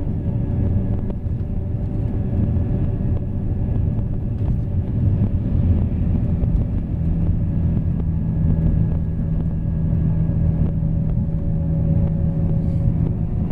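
Scania K 440 coach's six-cylinder diesel engine running steadily at highway speed, a deep continuous rumble. From about six and a half seconds in, a steady drone at one fixed pitch comes up over it.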